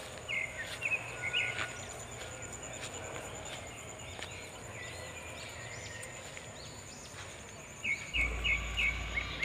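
Outdoor paddy-field ambience: a bird calling in two short runs of quick high chirps, one near the start and one near the end, over a faint steady high whine. A low rumble comes in near the end.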